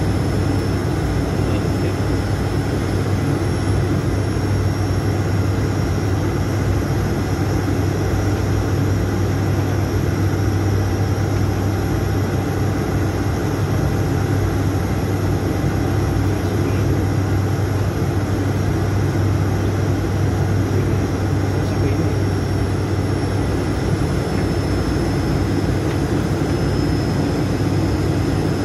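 Steady drone inside the cockpit of an ATR 72-600 turboprop in flight on approach: its Pratt & Whitney PW127M engines and propellers give a strong low hum under a broad rushing noise, with a thin high whine above.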